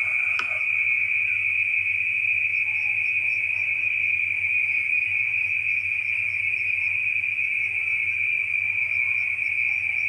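Night insects trilling in one steady high-pitched drone that never lets up, over a faint low hum; a single click about half a second in.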